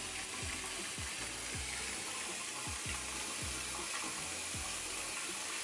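Steady fizzing hiss of a bath bomb dissolving in bath water. Under it runs soft background music with a deep, regular beat.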